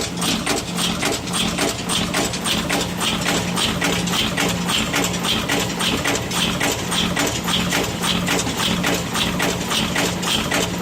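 Yeswin YBP10B5S five-station bolt former (cold heading press) running steadily: a rhythmic mechanical clatter whose stroke repeats a little under twice a second, with a humming drive and dense clicking of parts.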